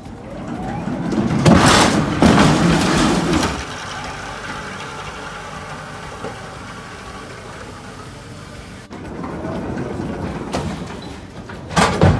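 Electric rider pallet jack moving pallets into a box truck at a warehouse dock: a loud rattling rumble a second or two in, a steadier hum through the middle, and more clattering with a sudden loud burst near the end.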